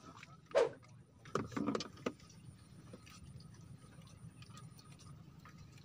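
Fishing rods and spinning reels being handled on a bamboo raft: a hollow knock about half a second in, then a quick cluster of clicks and rattles around one and a half to two seconds, over a low steady hum.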